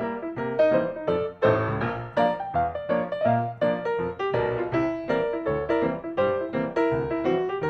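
Background music led by piano, notes struck in a steady rhythm several times a second.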